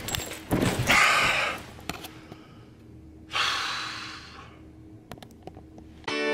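A man's two long, breathy sighs, one about a second in and a longer one past the middle, the sighs of someone worn out. Guitar music starts just at the end.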